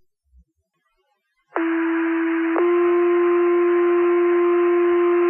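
Two-tone sequential paging tones over a fire dispatch radio channel: a steady tone of about one second, then a slightly higher steady tone held for about three seconds, the alert that sets off the firefighters' pagers. The tones start about a second and a half in and have the thin, buzzy quality of a radio channel.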